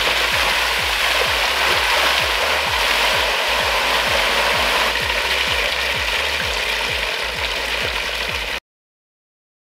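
Water from a pool on a trampoline pouring over the edge in a wide sheet and splashing onto grass and mud, a steady rushing splash. It cuts off suddenly near the end.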